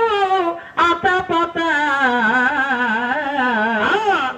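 A man singing through a microphone and loudspeaker: long held notes with a wide vibrato, the melody sinking lower through the middle and sliding up near the end, where the phrase stops.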